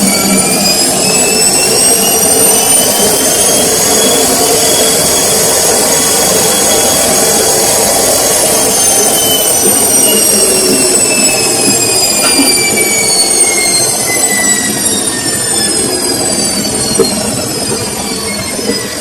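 Samsung washing machine's drum motor whining in a spin: the whine rises over the first few seconds, holds, then falls steadily through the second half as the drum slows down, over a steady rushing noise.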